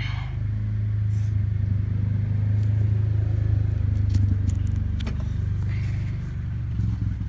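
A steady low mechanical hum, with a few light clicks and taps over it.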